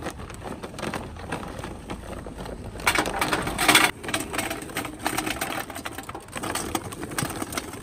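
Charcoal briquettes pouring from a paper bag and clattering into a metal charcoal chimney starter: a dense rush of clatter about three to four seconds in that stops abruptly, with scattered knocks as more briquettes drop before and after.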